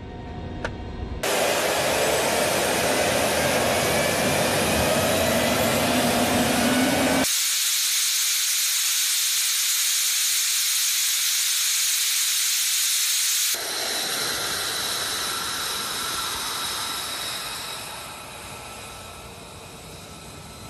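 F-35 Lightning II's F135 turbofan engine running on the flight line: a loud jet hiss with whine tones that rise, then high hiss alone, then steadier whine tones that fade near the end. The sound changes abruptly twice, at edits between shots.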